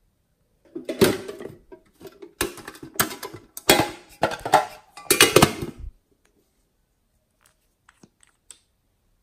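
A pink metal tin handled close to the microphone: a run of loud clattering and rattling noises over about five seconds, then a few faint clicks near the end.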